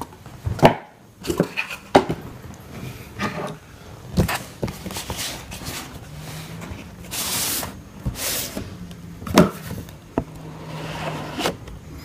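Knife packaging being handled and opened: scattered knocks and taps, with bursts of rustling from cardboard and wrapping.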